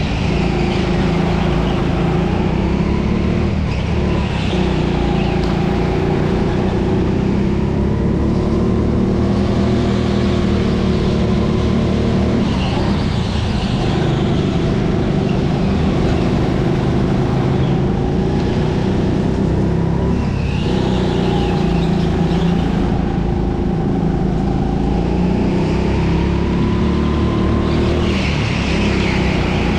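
Indoor racing kart's engine running hard, its pitch rising and falling as it accelerates and lifts through the corners. Short bursts of tyre squeal come every few seconds.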